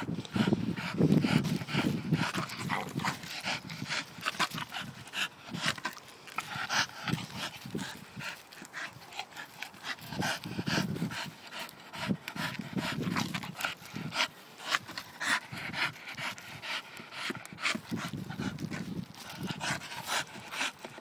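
Staffordshire bull terrier panting hard while scrabbling in wood chips and leaf litter, with many short scuffs and rustles and a few louder low puffs of breath.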